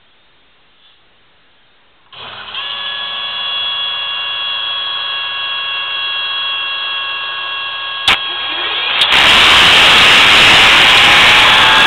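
A motor on a thrust-gauge test stand: a steady whine with several held tones starts about two seconds in, a sharp click comes near eight seconds, and about a second later a much louder roar takes over, with a faint rising tone in it.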